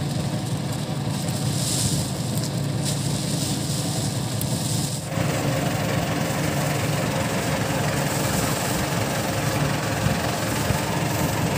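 A small boat engine running steadily at idle, its tone changing abruptly about five seconds in.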